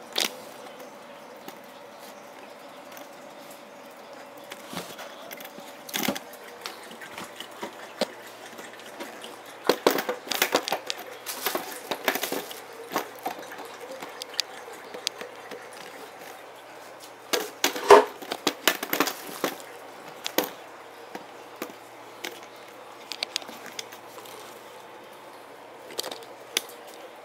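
Irregular clicks, knocks and rustles on a hard floor. They come in busy clusters about ten to thirteen seconds in and again around eighteen seconds, where the loudest knock falls.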